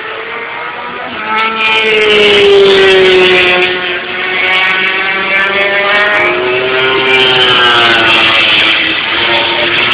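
MotoGP racing motorcycle engines at high revs as bikes pass, the pitch sweeping down and then climbing again with gear changes and throttle. Loudest about two to three seconds in.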